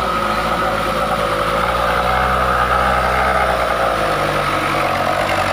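Mitsubishi Colt Diesel light truck's diesel engine running steadily under load while the truck works through mud, its pitch shifting about four seconds in.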